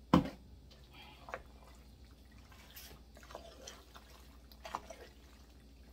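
A glass sauce jar knocks sharply onto the counter just after the start, then sauce-coated ziti is stirred and tossed with a wooden spoon in a stainless steel pot, giving soft, wet, irregular squelches.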